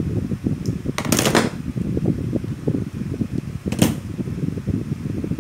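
Hand tools and a small transformer being handled on a metal-strewn workbench: two short rasping scrapes, one about a second in and a shorter one near four seconds, over a steady low rumble of air noise.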